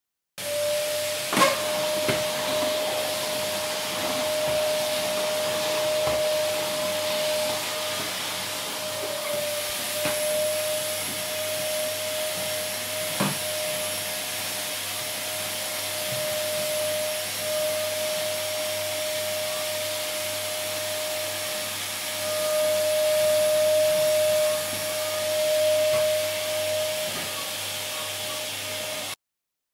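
Vacuum cleaner running steadily: a constant motor whine over a rush of air. A sharp knock about a second and a half in and another near the middle; it cuts off abruptly just before the end.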